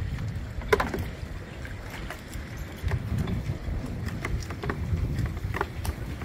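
Wind buffeting the microphone in a low, uneven rumble, with scattered light clicks and knocks, the sharpest a little under a second in.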